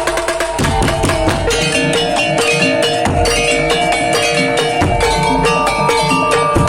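Tong-tong ensemble music from Madura: fast, dense beating on wooden slit drums and drums, with held pitched notes running over the rhythm.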